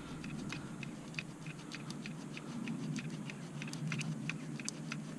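Faint, irregular light clicks of a bolt and small metal parts being handled, about three or four a second, over a low steady hum.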